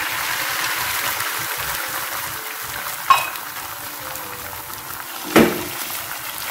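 Beaten egg sizzling in hot oil with fried garlic and shallots in a nonstick frying pan, a steady hiss. Two light knocks cut through it, one about three seconds in and a louder one about five seconds in.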